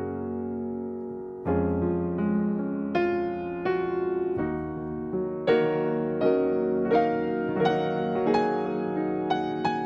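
Background music: a gentle keyboard piece, piano-like notes and chords struck every half second to a second, each fading before the next.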